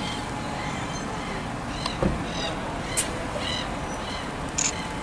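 Steady low rumble of bus engines and traffic across a bus station, with a bird giving a string of short calls through the middle and a few sharp clicks near the middle and end.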